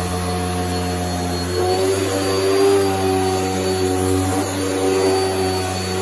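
Airway Sanitizor Mark V vacuum cleaner running steadily as its powered beater-bar nozzle is pushed over carpet. The motor's hum holds, and its pitch shifts a little now and then.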